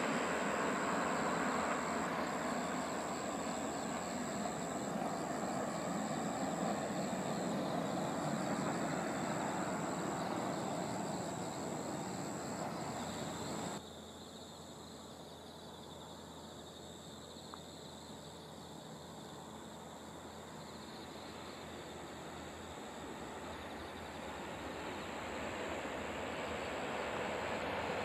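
Tohoku Shinkansen high-speed trains passing along a distant elevated viaduct: a steady rushing rumble that slowly fades and is cut off abruptly about halfway. After that comes a quieter stretch, and near the end a second train's rush swells in.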